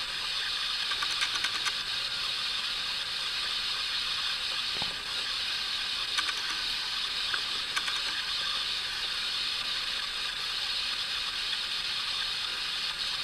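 Heavy thunderstorm rain falling steadily, an even hiss with a few faint ticks.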